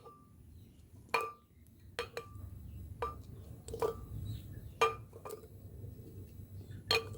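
Chunks of cut pineapple and carrot dropped one at a time into a blender jar, each landing with a short clink, about ten at uneven intervals.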